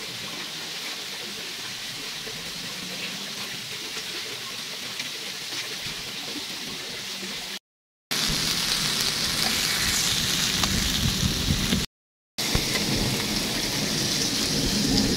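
Chicken fillets sizzling on an electric grill plate: a steady, even hiss. After a cut about halfway through, a louder hiss with a low rumble under it.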